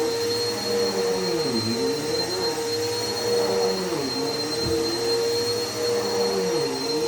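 Vacuum cleaner running with a steady motor whine. Its lower note dips and recovers about every two and a half seconds.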